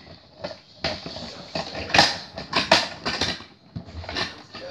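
Plastic toy garbage truck being handled: a string of irregular sharp clicks and clatters as its plastic parts are moved and knocked together.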